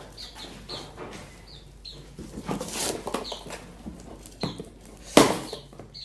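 Short high chirping calls from caged cucak jenggot (grey-cheeked bulbuls), repeated about once a second. Handling noise runs under them, with a loud thump just after five seconds.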